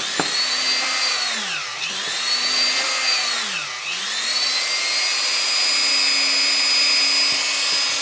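Small electric drill boring pilot holes through 4 mm MDF: the motor's whine sags in pitch each time the bit bites in and recovers, about every two seconds, then from about halfway runs steady with no load.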